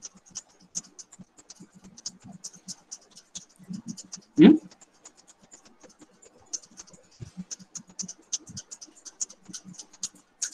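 Irregular light clicking and scratching, with one short, much louder sound about four and a half seconds in.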